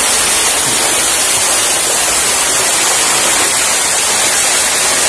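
Artificial waterfall: a curtain of water pouring off a stone grotto into a swimming pool, heard from just behind it as a loud, steady rush.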